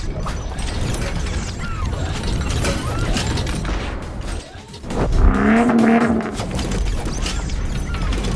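Produced intro sound effects: metallic clanks and whooshes over music, with a loud hit about five seconds in followed by a pitched rumble held for about a second.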